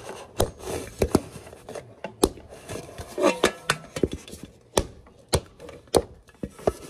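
Screwdriver handle tapping the thin metal reflector dome of a clip-on brooder lamp to dent it: about a dozen sharp knocks, irregularly spaced, roughly half a second to a second apart.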